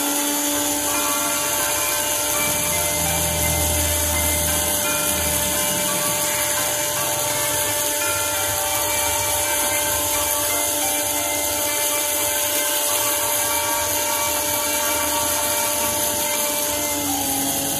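Handheld rotary tool running with a small burr, grinding a piece of quartz: a steady whine over a high hiss, its pitch dipping briefly near the end as the bit is pressed in.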